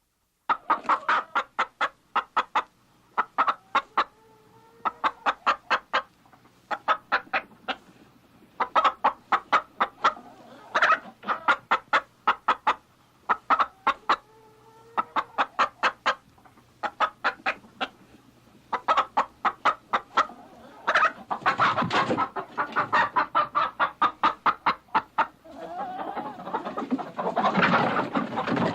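Hens clucking in quick runs of short, sharp clucks, several a second, broken by brief pauses and a few drawn-out notes. The clucking grows denser and louder over the last several seconds.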